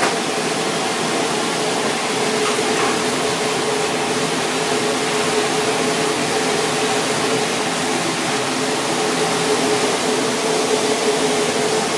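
Steady rushing kitchen noise with a steady hum, as a fish fillet simmers in sauce in a small frying pan over a gas burner.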